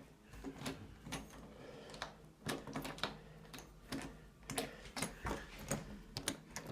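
A series of irregular sharp clicks and light knocks, roughly two a second, over a faint low hum.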